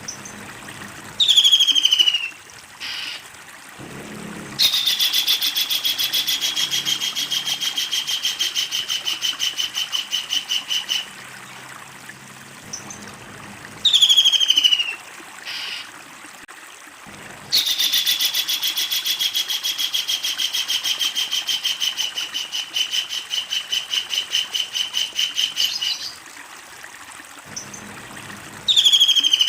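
Kingfisher calling: a short falling screech, then a long rapid rattling trill of about six to eight seconds that slowly drops in pitch. The pattern comes twice, with the screech again near the end.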